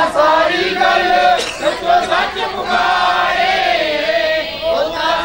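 Several voices singing together in chorus, overlapping wavering melodic lines of a Punjabi devotional song.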